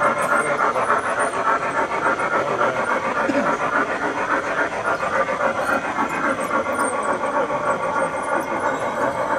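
G-scale model Challenger steam locomotive hauling a long freight train, with a rapid, even chuffing and the sound of the wheels rolling on the rails.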